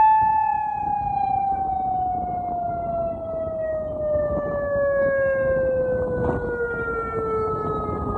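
Outdoor tsunami warning siren sounding one long tone whose pitch falls slowly and steadily as it winds down.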